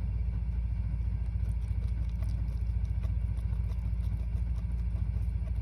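Steady low mechanical rumble with a fast, even flutter, like a motor running.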